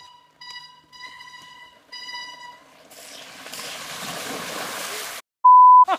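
Mountain bikes ploughing through a shallow creek crossing: a rush of splashing water that builds and then cuts off suddenly about five seconds in, followed by a loud, short edited-in bleep tone. Before the splash, a thin steady high squeal sounds in three short pulses.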